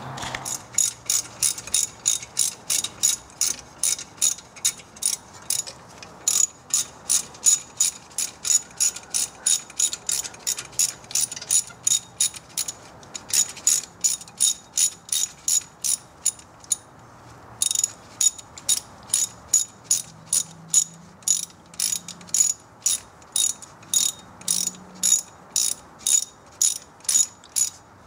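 Hand ratchet clicking in a steady run of short strokes, two or three clicks a second, with brief pauses twice midway. It is turning a 7mm hex bit to back out a front brake caliper guide bolt on a 2004 Audi A4.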